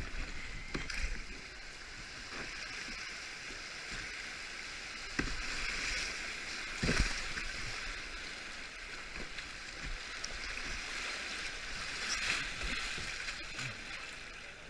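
Rushing, splashing river water around a sit-on-top kayak running a small rapid, with paddle strokes in the water. There are a few sharper splashes, the loudest about seven seconds in.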